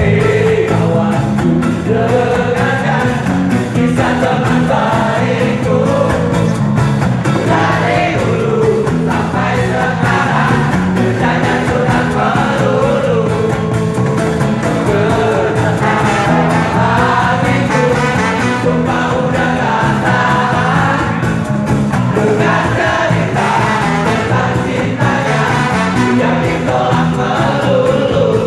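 Ska band playing live and unplugged: strummed acoustic guitars keep a steady bouncing beat, a brass horn plays, and several male voices sing together into microphones.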